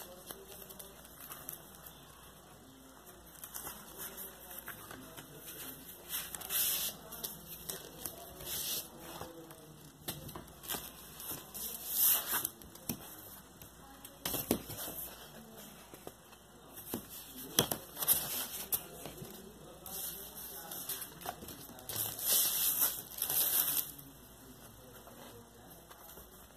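A vinyl LP being unpacked by hand: the cardboard album jacket and paper inner sleeve rustle and crinkle in irregular bursts as the record is slid out and handled, with occasional light clicks.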